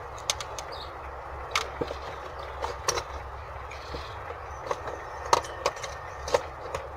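Scattered short clicks and taps, as of small objects being handled, over a steady background hum.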